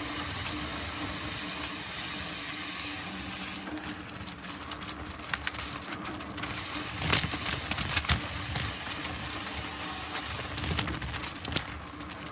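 Mountain bike rolling along a dirt trail: steady tyre and wind noise with occasional knocks and rattles from bumps.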